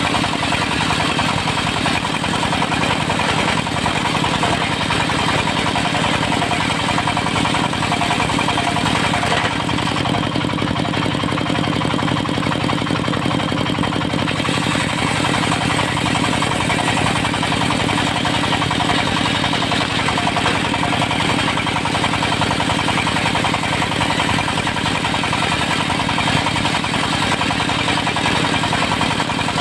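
Diesel engine driving a circular sawmill blade, running steadily at a constant speed.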